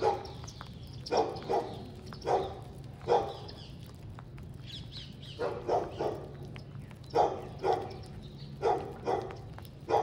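A dog barking over and over: over a dozen short barks, some single and some in quick pairs and threes.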